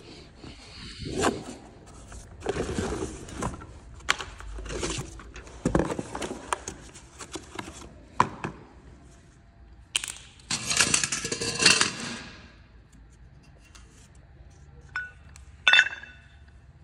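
Clutch parts and their cardboard box being handled on a concrete floor: irregular scraping and rustling with knocks. A sharp metallic clink rings out near the end.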